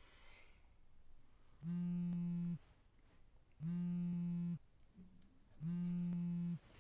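A mobile phone vibrating on a bedside table: three even buzzes, each just under a second long, about two seconds apart.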